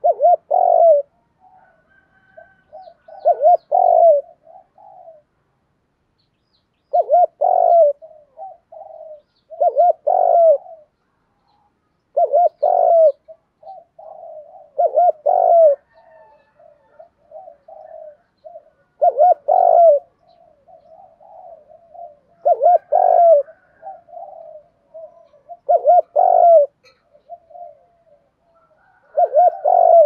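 Spotted dove cooing: loud, low cooing phrases repeated about every two to three seconds, with softer coos in between.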